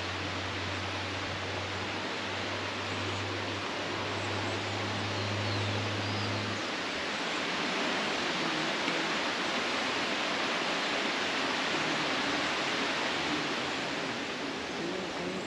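Steady outdoor rushing noise, with a low hum that stops about six and a half seconds in and a few faint high chirps.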